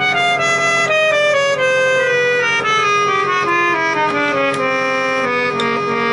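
Colton Industries E3751 KD30 air-powered electric organ playing a descending run of notes, about two a second. Under the run one note keeps sounding throughout, with the steady noise of its loud blower fan: something in the organ is stuck, so it sounds even when nothing is being played.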